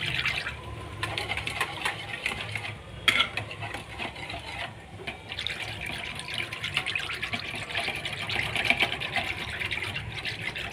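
Wire whisk beating yogurt in a plastic bowl: fast, continuous wet swishing and slapping strokes, with a brief lull about four seconds in. One sharp click about three seconds in.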